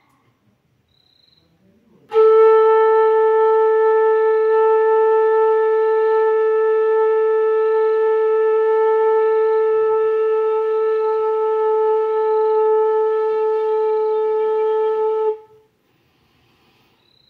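Bansuri (Indian bamboo flute) holding one long, steady note for about thirteen seconds, starting about two seconds in and cutting off sharply near the end: long-tone practice of a single sargam note.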